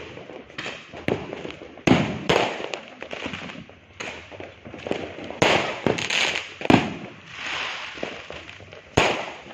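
Fireworks going off: a run of sharp bangs and booms with crackling between them, the loudest about two seconds in, near the seventh second and near the end.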